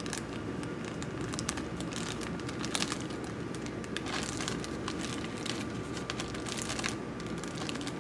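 Clear plastic Ziploc bag crinkling in a steady run of irregular crackles as gloved hands grip it and a swab is stroked along the salamander inside.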